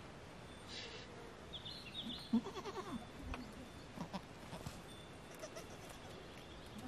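A goat bleating once, a short quavering bleat about two and a half seconds in.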